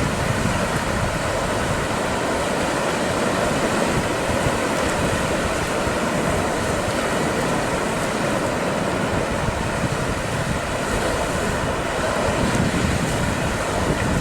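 Steady rushing noise of wind buffeting the microphone over waves and surf.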